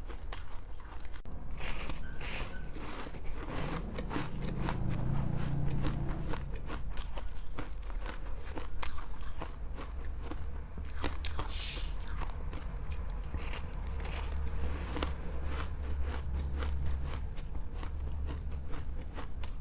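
Ice being bitten and crunched close to the microphone: a dense, irregular run of crisp cracks and crunches as pieces are bitten off and chewed.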